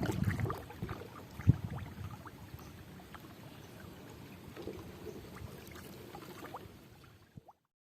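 Water splashing and sloshing with scattered knocks, loudest in the first couple of seconds, fading away and cutting off about seven and a half seconds in.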